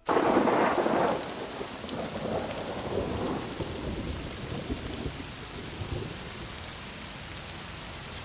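Rain pouring steadily with thunder rumbling, loudest in the first second and swelling again about three seconds in before easing off.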